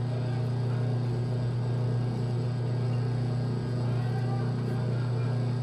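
Electric wire stripping machine's motor running with a steady low hum.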